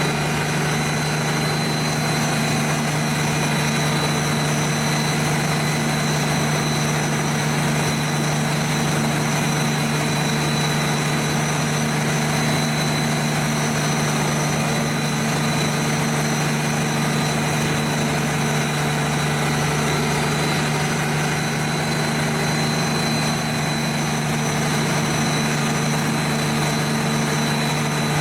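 Pezzolato PTH 1400/1000 drum wood chipper running at a steady, unchanging drone.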